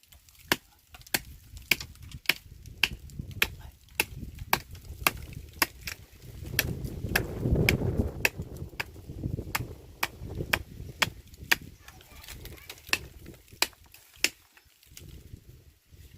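A blade chopping into a tree's bark, sharp strokes about two a second that thin out near the end. A low rumble swells in the middle.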